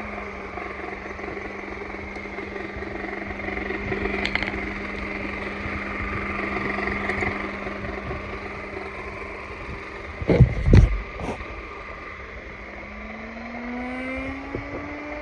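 Vacuum cleaner motor running at a steady pitch, which rises near the end as the motor speeds up. Two or three loud knocks come about ten seconds in.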